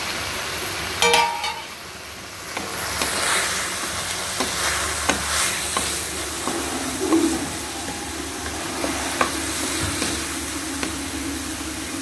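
Chopped vegetables sizzling in hot oil in a kadhai as they are sautéed, stirred and scraped around with a wooden spatula. The spatula knocks against the pan here and there, with a louder clatter about a second in.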